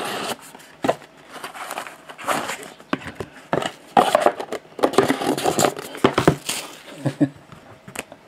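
Cardboard box being opened and handled by hand: irregular rustling, scraping and light knocks as the lid comes off, then a hard plastic card case handled.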